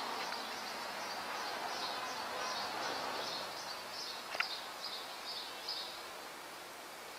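Steady street background noise with a high, thin chirp repeated a few times a second that fades out about six seconds in, and a single short click a little past four seconds in.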